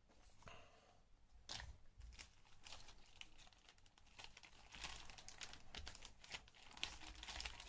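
Small clear plastic zip-lock bag crinkling as fingers handle it at its zip edge: quiet, irregular crackles that come more often in the second half.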